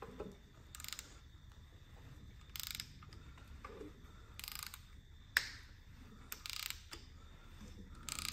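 Ratchet wrench clicking in short strokes, about every two seconds, as a small-block Chevy V8 on an engine stand is turned by hand at its front. A single sharp click stands out about five seconds in.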